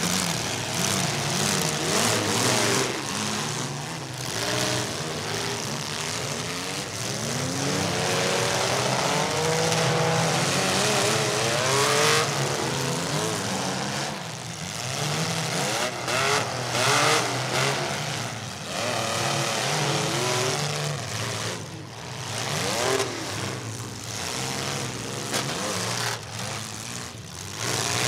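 Several compact demolition-derby cars' engines revving up and down at once, pitches rising and falling as they push and ram, with a few loud bangs about twelve, seventeen and twenty-six seconds in.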